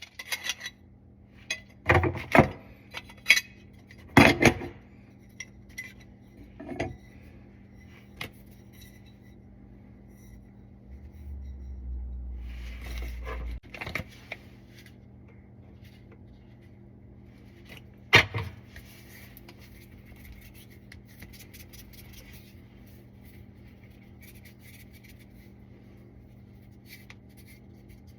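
Metal parts and tools being handled: scattered clinks, knocks and scrapes, busiest in the first few seconds, with a few more knocks later. A low rumble lasts a couple of seconds near the middle.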